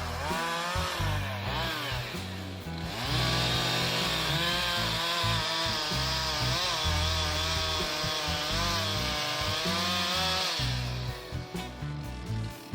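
Chainsaw running and cutting, its engine pitch wavering up and down as the chain meets the wood, with a loud hiss of cutting for most of the stretch. It fades out near the end.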